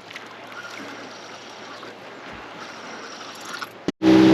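Faint steady outdoor wind and water noise. Near the end it drops out for an instant, then a loud engine cuts in abruptly, running with a steady hum.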